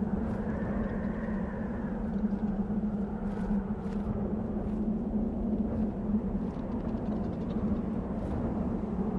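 Desert wind blowing steadily, a constant low rumble with a soft whistle that swells and fades twice.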